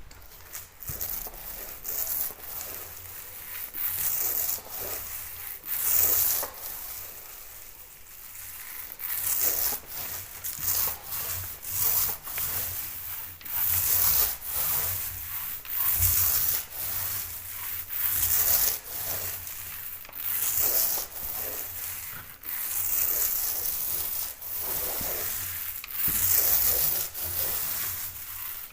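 Sandpaper rubbing over dried filler on a plasterboard repair, in repeated back-and-forth strokes, about one or two a second.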